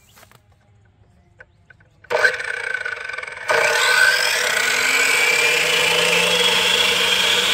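A power saw starts about two seconds in and gets louder a second and a half later, then runs steadily with a rising whine.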